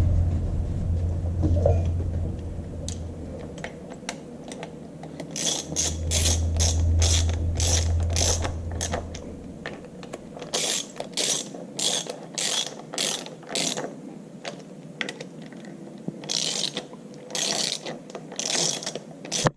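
Socket ratchet wrench clicking in repeated short strokes as the bolts of the tractor's power take-off housing are tightened down, starting about five seconds in and going on in runs. A low steady hum sounds under the first half and stops about halfway.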